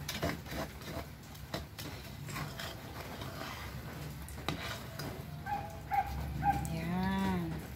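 Metal spatula stirring and scraping dark muscovado sugar syrup as it bubbles in a pan, with light clicks against the metal. In the last couple of seconds a pitched, wavering whine comes in over the stirring.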